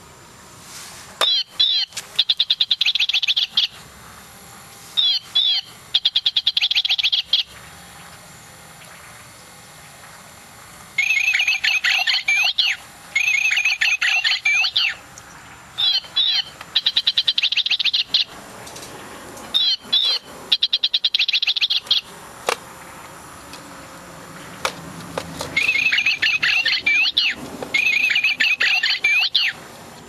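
Battery-powered toy singing bird in a cage: electronic chirps and rapid trills in repeated phrases of a second or two. The phrases come in pairs and are separated by pauses, with two longer gaps along the way.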